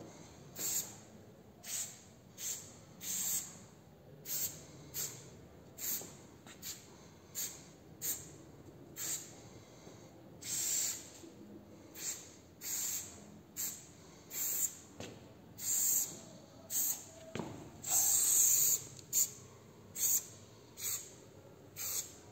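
Aerosol spray paint can hissing in short, repeated bursts, roughly one or two a second, with one longer spray near the end.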